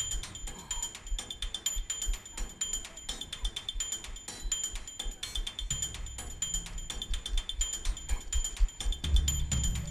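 Background music in a quiet passage: a fast, even ticking beat with high repeating tones, and a low bass pulse coming in about six seconds in.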